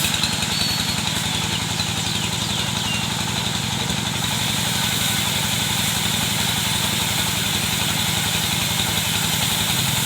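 An engine running steadily at an even speed with a fast, regular low beat, likely the power unit of a wood-sawing machine; faint bird chirps in the first few seconds.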